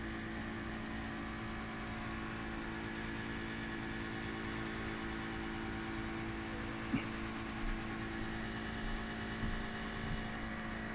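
Steady low electrical hum with faint hiss, and a few soft clicks in the second half.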